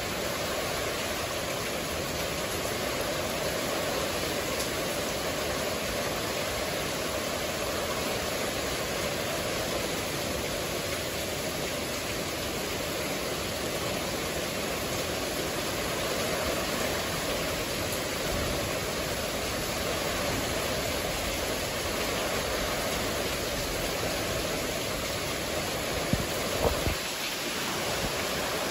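Heavy rain falling steadily in a thunderstorm, an even hiss with no let-up. Near the end there are a few brief knocks.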